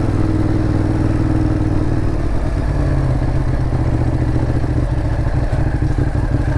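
Ducati Monster 821's L-twin engine running steadily at low revs as the bike rolls slowly over a rough, stony track, with a few light knocks about five seconds in.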